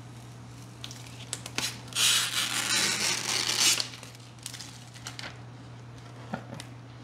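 Protective plastic film being peeled off a new refrigerator: a few light crackles, then a noisy ripping pull of film lasting about two seconds, then another small crackle near the end.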